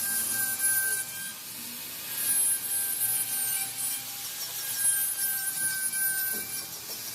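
CNC router cutting wood. Each pass brings a hissing cut with a thin whine, and the passes repeat about every two and a half seconds.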